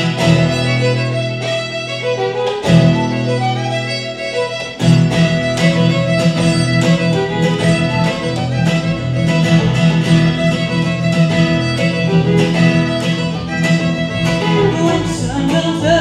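Acoustic string band playing an instrumental intro: a fiddle leads with long bowed notes, joined about five seconds in by strummed acoustic guitar and upright bass in a steady rhythm.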